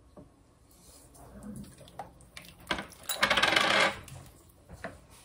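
Small clinks and taps of kitchen utensils against the crock pot, with a brief shaking rattle about three seconds in, as dried spices and bay leaves go into the soup.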